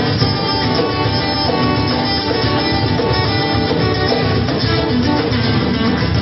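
A band playing music without pause, at a steady, fairly loud level.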